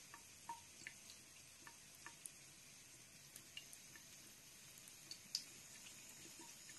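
Faint trickle of a thin stream of tap water running from a bathroom faucet into the sink, with scattered small drips and ticks.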